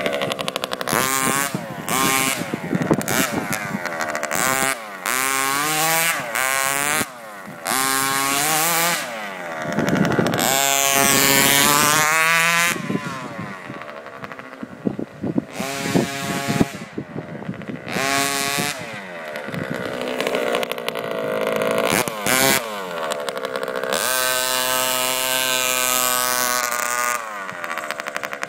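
Small two-stroke petrol engine of a radio-controlled truck revving up and down in repeated bursts of throttle, its pitch rising and falling, with brief drops toward idle between.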